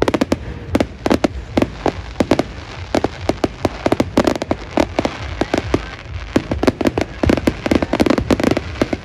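Aerial fireworks bursting in a rapid, continuous run of bangs, several every second, from many shells going off together.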